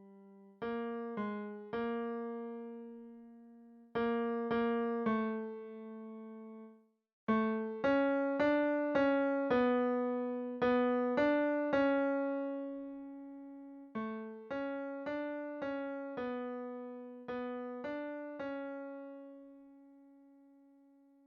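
Piano playing a single melody line in the tenor range, one note at a time, in short phrases with brief pauses: the tenor part of a choral piece. The last note is held and fades out near the end.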